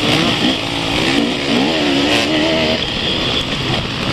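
Enduro motorcycle engines running close by, heard from on board one of the bikes, revving up and down as the bikes ride over rough mud. The pitch climbs about two seconds in and drops back near three seconds.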